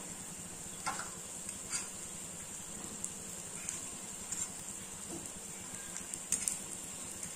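Breaded potato cutlets shallow-frying in oil in a nonstick pan, with a steady sizzle. A few light clicks of a steel fork against the pan as the cutlets are turned over.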